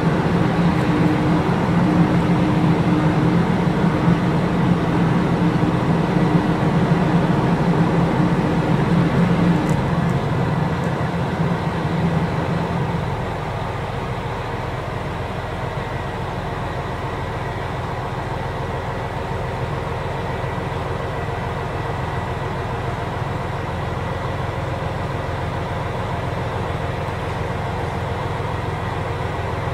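Diesel engines of KiHa 261 series limited express railcars running, a steady low hum with a deep tone and overtones. About 13 seconds in the deeper tone stops and the sound drops to a quieter steady hum.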